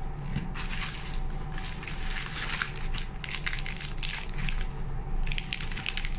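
Clear plastic packaging crinkling and crackling irregularly while a small bottle sealed in a plastic bag is handled.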